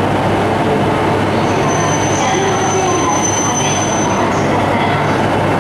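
E2-series Shinkansen train rolling slowly into the station platform, running with a steady hum and noise. A thin, high, steady squeal rises over it from about a second and a half in until just past four seconds.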